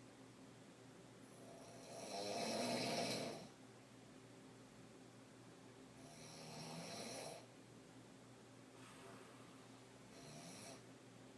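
A woman snoring while asleep on her back, one snore roughly every four seconds. The first, about two seconds in, is the loudest, and the later ones grow weaker toward the end.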